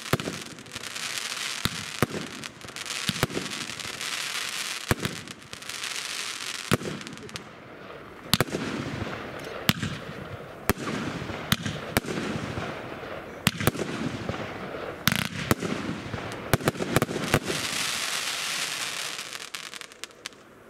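Pangu Fireworks 'Vermillion Bird' fireworks cake firing: sharp shots about once a second, with a dense crackle of bursting stars between them, dying away near the end.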